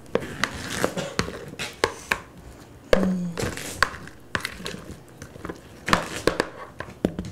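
Chef's knife slicing zucchini on a cutting board: irregular sharp knocks of the blade striking the board, about one or two a second.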